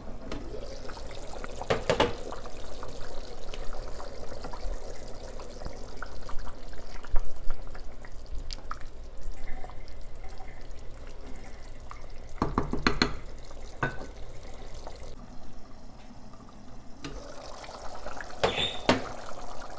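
Pot of red lentil stew (misir wot) bubbling at a boil, with a wooden spoon stirring through it. A few sharp knocks against the pot stand out, about two seconds in and again around thirteen seconds.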